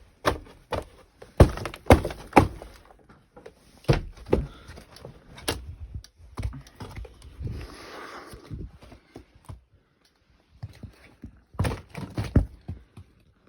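Irregular thuds and knocks of footsteps on a debris-covered floor, with a brief scraping rustle about eight seconds in and another cluster of heavy thuds near the end.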